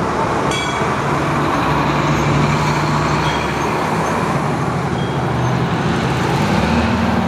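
Fire trucks driving past with their engines running, a steady low hum over road noise; the engine sound grows louder near the end as a ladder truck passes close.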